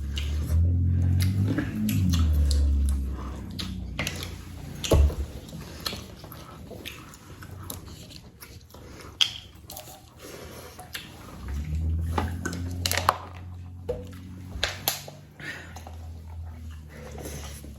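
A person eating close to the microphone: chewing and biting, with many short wet clicks and smacks scattered through, over a low rumble at the start and again in the second half.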